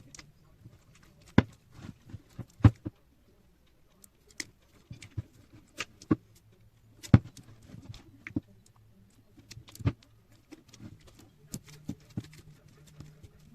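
Slime being worked by hand, making irregular sticky clicks and pops, a few of them much louder than the rest.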